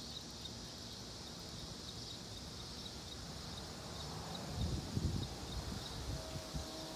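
Steady high-pitched chorus of insects, such as crickets, with a regular chirp pulsing through it. A few low thuds come about two-thirds of the way through.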